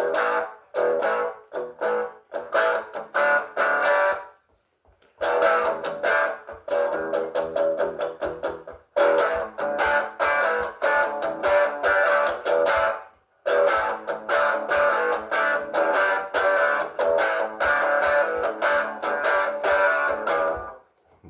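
Guitar strummed in quick, even strokes, breaking off for about a second some four seconds in and briefly again around thirteen seconds.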